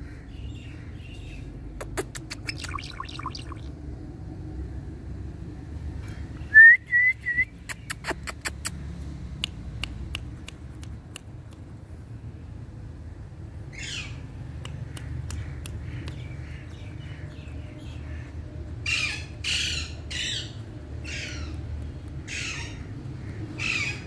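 Pet parakeet calling: a few sharp clicks, then three short rising chirps about a quarter of the way in, the loudest sound, then from about the middle a run of harsh squawks that grow louder toward the end. A steady low rumble sits underneath.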